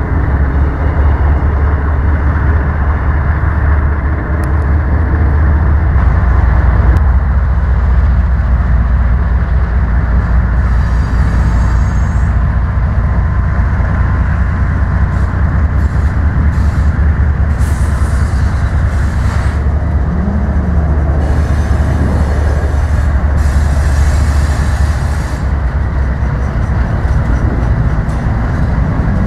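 A Canadian Pacific GE ES44AC and a CEFX GE AC4400CW diesel locomotive passing at slow speed ahead of an autorack train, the engines running with a steady heavy rumble. High wheel squeal comes and goes several times over the middle stretch.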